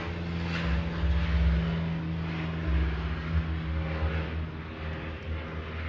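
A steady low machine hum at a constant pitch, with a rumble under it that rises and falls a little.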